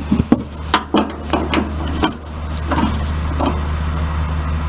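A screwdriver clinking and scraping against the sheet-metal blower housing and lint chute of a Kenmore dryer as the housing is worked loose: a quick run of sharp metallic taps and knocks for the first three and a half seconds, then only a steady low hum.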